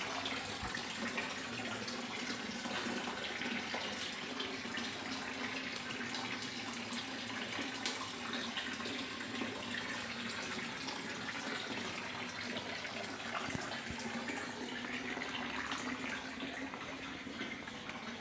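Steady rush of running water, like a tap left running, easing off slightly near the end.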